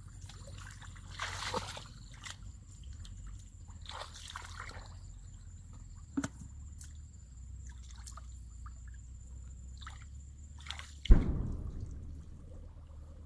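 Water sloshing and splashing in a few separate splashes, with one sudden loud thump about eleven seconds in that dies away over a second.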